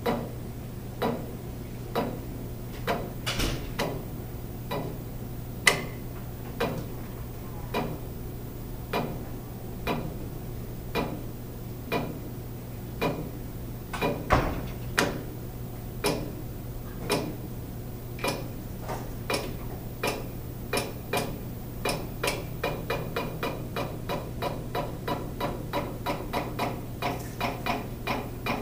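Zebra R110Xi4 RFID label printer running its RFID tag calibration, stepping the tag media forward with a click about once a second, the clicks coming faster, two to three a second, over the last several seconds. A steady low hum runs underneath.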